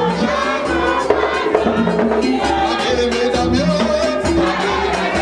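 Live group singing of a Haitian vodou song, male lead voices with the crowd joining in, over a steady low drumbeat.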